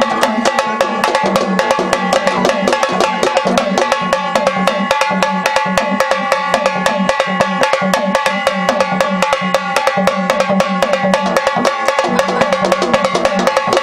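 Gondhal ritual music: fast, dense drumming in a driving, even rhythm, with steady ringing tones held above it.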